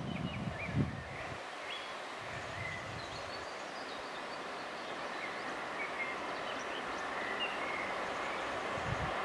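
Faint, steady running of an approaching DDB1 diesel train hauled by a 2M62U diesel locomotive, growing slowly louder, with birds chirping over it. A few low rumbles of wind on the microphone in the first second and a half.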